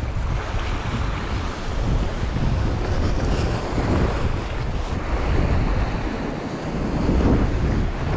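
Wind buffeting the microphone over the wash of sea waves on shore rocks, a steady loud rumble of noise.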